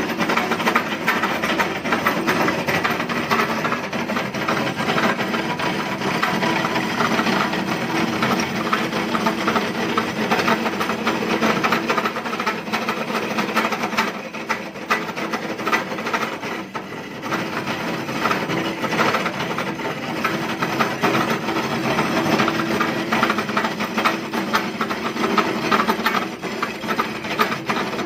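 Belt-driven cutting machine running, its cutter wheel grinding into the steel shell of a refrigerator compressor to cut it open. The grinding is steady and eases off briefly about halfway through.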